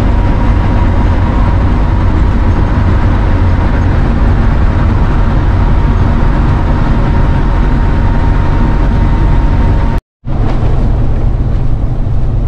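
Cab noise of a Class A motorhome on the move: steady engine and road rumble with a thin steady whine. The sound breaks off for a moment about ten seconds in, then the rumble carries on without the whine.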